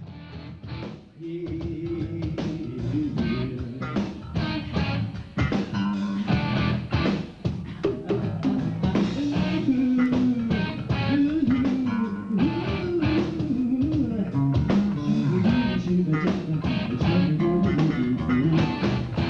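Live rock band playing: electric guitar and drum kit, with a lead voice that wavers and glides in pitch over them.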